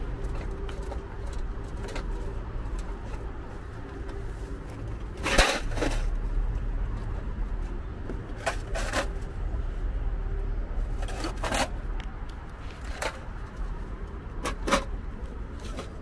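Metal hand tools (ratchets, sockets and spanners) clinking in a steel tool tray as it is carried. A scattering of short, sharp clinks, the loudest about five seconds in, sounds over a steady low rumble.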